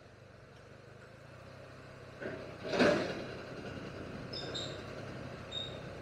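Yamaha TMAX 560 scooter's parallel-twin engine running at low speed, its steady low hum growing louder. About three seconds in, a short loud rush of noise.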